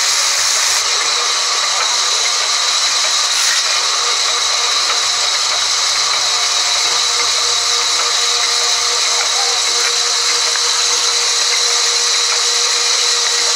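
Large sawmill band saw running and ripping lengthwise through a log: a loud, steady noise with a constant high whine.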